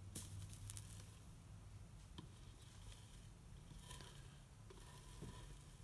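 Faint, sparse ticks and crackles from a soldering iron melting solder wire along a copper-foiled stained glass seam, over a steady low hum.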